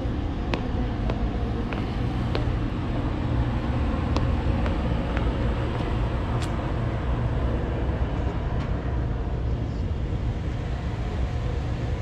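Steady low outdoor rumble with a few faint, sharp clicks scattered through it.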